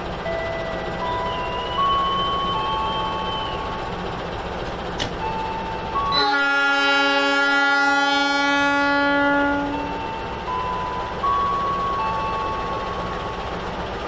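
Diesel locomotive air horn sounding one long chord, about three seconds, starting about six seconds in. Before and after the horn, a simple melody of steady electronic tones steps from note to note.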